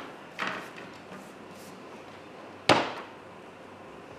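Knocks of flat-pack cot panels being stood up and pushed together: a lighter knock about half a second in, then a sharp, louder knock about two and a half seconds in.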